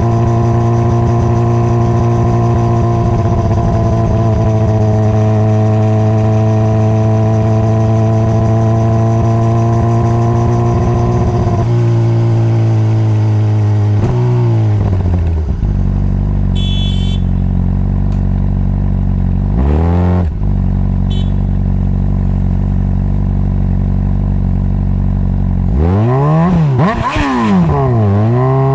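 Honda CBR600RR's inline-four engine holding a steady note while cruising, then dropping to a low idle. It gives one quick rev near the middle, then revs up and drops back several times in quick succession near the end as it shifts up through the gears pulling away.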